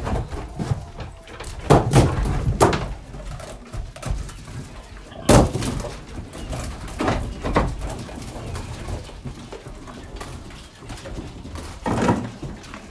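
Farmyard chickens clucking, with several sharp knocks around a wooden pen. The loudest knock comes about five seconds in.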